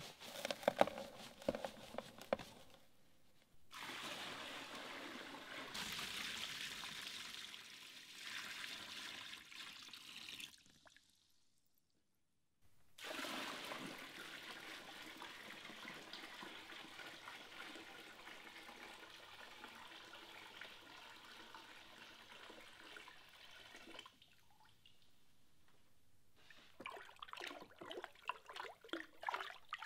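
Water running and trickling into a plastic tub, after a few handling knocks at the start. Near the end a hand swishes and splashes the water to mix in washing soda for an electrolysis bath.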